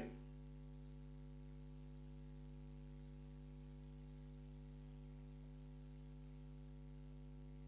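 Near silence apart from a faint, steady electrical mains hum made of several fixed low tones.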